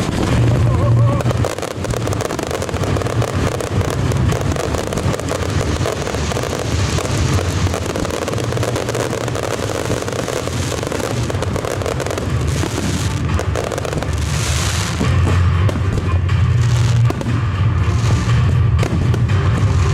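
Fireworks going off without a break: many overlapping bangs with deep booms underneath.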